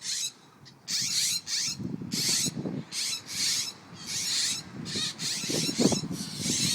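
Parent birds giving harsh, scolding alarm calls, roughly one a second, each a short raspy burst, upset at a dog that has found their young.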